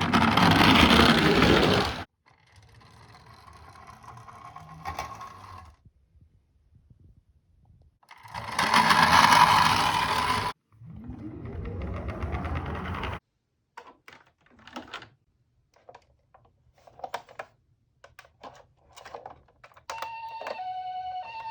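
A toy ambulance minicar rolling down a plastic slope: two loud rushes of wheel noise, each about two seconds long, with quieter rumbling and scattered clicks between them. About twenty seconds in, its electronic two-tone hi-lo siren starts, the Japanese ambulance "pee-po" pattern.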